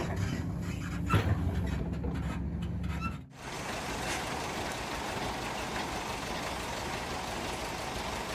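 A heavy machine's engine running, with a loud clunk about a second in. About three seconds in it cuts abruptly to a steady rushing noise.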